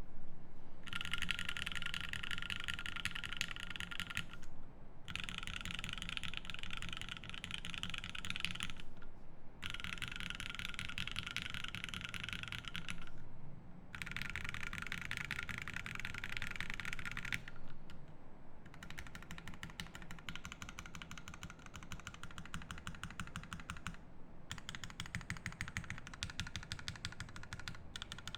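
Fast typing on a Savage65 mechanical keyboard with lubed Zeal Tealio V2 67g linear switches, an FR4 plate and GMK Coral keycaps: a dense run of keystroke clacks, broken by short pauses every four or five seconds.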